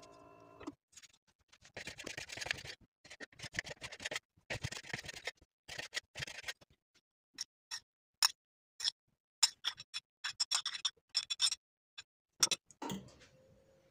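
Knife dicing plums on a wooden cutting board: quick runs of chopping taps for several seconds. Then a string of separate sharp clicks as a metal spoon drops diced plum onto dough rounds.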